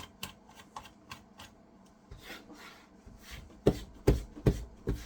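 A computer keyboard being handled on a desk: light plastic clicks, a brief rub, then four heavy knocks about 0.4 s apart near the end, the loudest sounds here.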